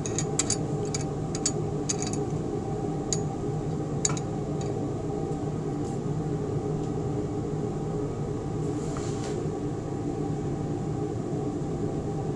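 Steady mechanical hum of the room, with a scatter of light clicks in the first four seconds or so as the riders of a triple-beam balance are slid along their notched beams.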